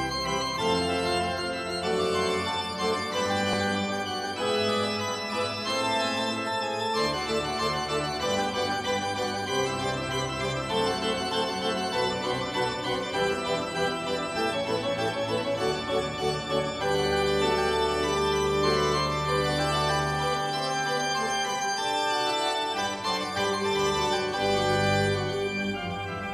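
Church organ playing: held chords over sustained deep bass notes, with a passage of quicker running notes in the middle.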